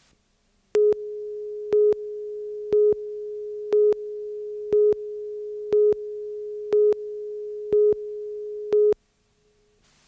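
Countdown leader tone on a videotape news story: a steady electronic tone with a louder short beep once a second, nine beeps, cutting off suddenly near the end.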